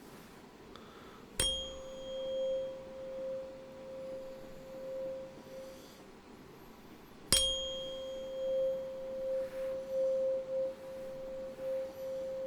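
A tuning fork struck twice, about six seconds apart. Each strike gives a bright high overtone that dies away within a second or so, leaving one pure, steady mid-pitched tone that rings on for several seconds, its loudness swelling and dipping.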